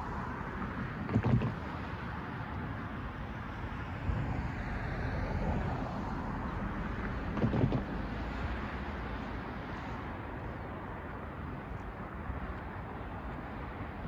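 Cars driving across a railroad grade crossing: tyre and road noise that swells and fades, with brief louder bumps about a second in and again about seven and a half seconds in. Steady wind noise on the microphone runs underneath.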